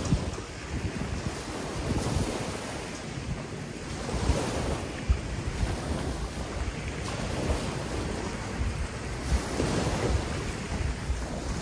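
Small waves washing onto a rocky, sandy shore, with wind gusting across the microphone as an uneven low rumble.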